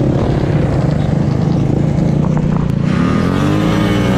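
Motorcycle engine running steadily, with an engine note climbing in pitch from about three seconds in as it revs up.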